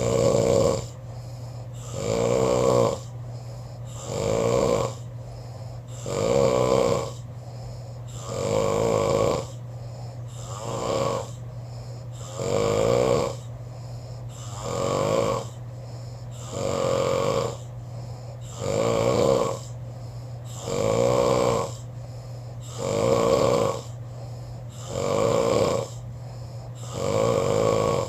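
A person snoring steadily in a regular rhythm, one snore about every two seconds, over a steady low hum.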